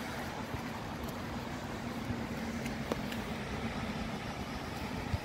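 Steady background rumble of distant road traffic with a faint steady hum, and one light tap about three seconds in.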